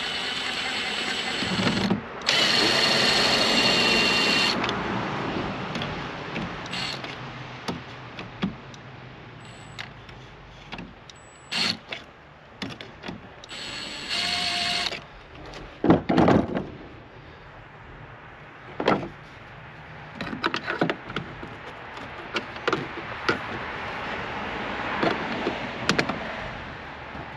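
Cordless drill running in short bursts, about two seconds, then again for about two seconds, and once more briefly in the middle, as it backs screws out of a boat's helm. Knocks and clicks of parts being handled in between, the loudest about sixteen seconds in.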